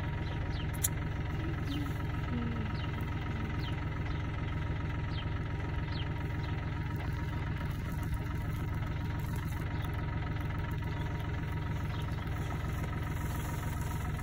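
An engine idling steadily, an even, unchanging hum.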